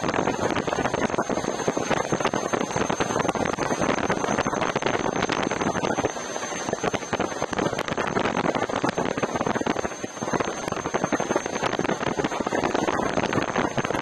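Gotway Tesla electric unicycle rolling at speed on asphalt: a steady rush of tyre and road noise mixed with wind buffeting the microphone, with a thin high steady tone above it. The noise eases briefly twice.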